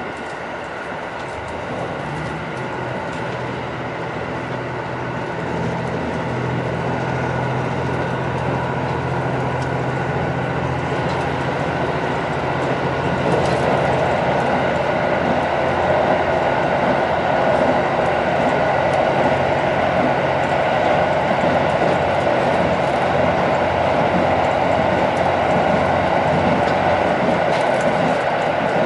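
Cabin running sound of a JR Central KiHa 85-series diesel railcar, car KiHa 84-302: a steady low hum from its underfloor diesel engines under wheel-on-rail rumble. The rumble grows louder through the first half and then holds steady.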